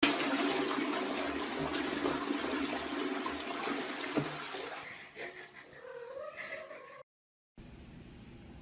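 A loud rushing noise for the first five seconds, then a house cat meows once with a wavering pitch about six seconds in.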